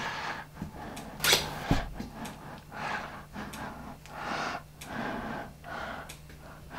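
Heavy breathing, one breath roughly every half second to a second, with one sharper, louder breath about a second in, over a faint steady hum.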